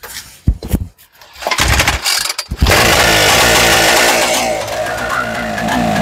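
Homemade 100cc twin-cylinder two-stroke engine, built from two pocket bike engines, giving a few separate pops as it tries to fire. It catches about two and a half seconds in and runs steadily and loud.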